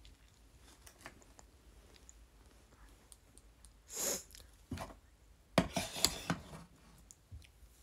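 Soft rustling, rubbing and clicking handling noises close to the microphone, loudest as a short cluster of rubs and clicks a little after five and a half seconds in. There is a brief breathy hiss at about four seconds.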